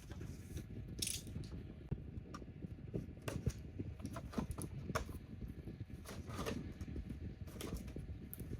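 Scattered sharp clicks and taps of plastic toys being handled, over a low steady rumble.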